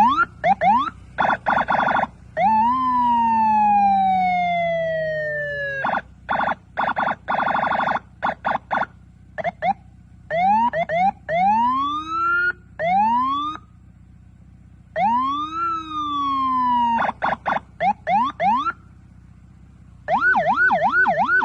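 Senken electronic vehicle siren sounded through its tones in short runs with pauses: quick chirping yelps, buzzy horn blasts, a long falling wail, several rising sweeps, and a fast yelp near the end.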